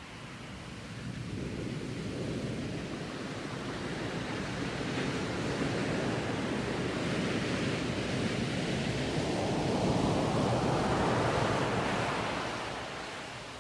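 Sea surf: the hiss of a wave that swells and washes in over several seconds, loudest about ten seconds in, then dies away near the end.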